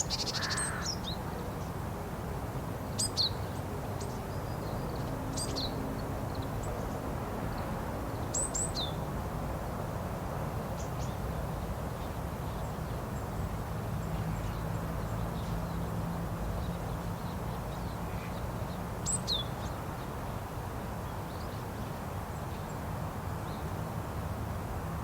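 Japanese tit calling: short, high notes that slide downward, given singly or in quick pairs every few seconds, over a steady low background rumble.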